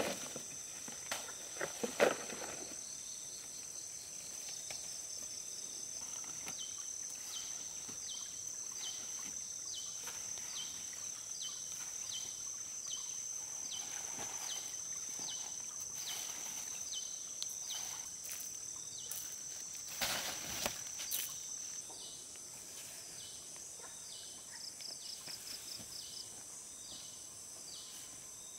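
Insects chirping outdoors: a steady high buzz with a regular short chirp a little more than once a second. A few sharp knocks come about two seconds in and again about two-thirds of the way through.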